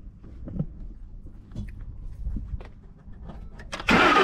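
Faint scattered clicks over a low rumble, then about four seconds in the pickup truck's engine suddenly starts, loud, on its freshly fitted replacement battery.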